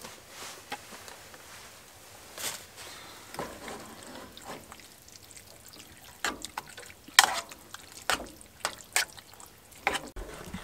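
A utensil stirring wet food in a camping pot on a wood stove, with scrapes and several sharp clinks of the utensil against the pot, most of them in the second half.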